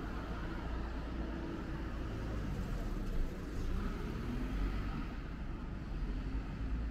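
Road traffic on a city street: cars and a small truck driving past, a steady low rumble of engines and tyres, with an engine note that rises and falls near the middle.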